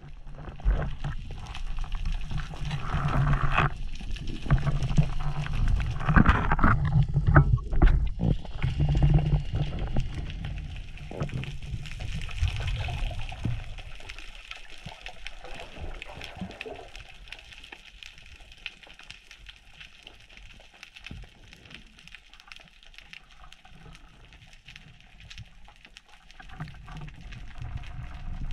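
Muffled underwater sound on a diver's camera: water gurgling and sloshing against the housing, with a few sharp knocks in the first half. It eases to a quieter wash from about halfway.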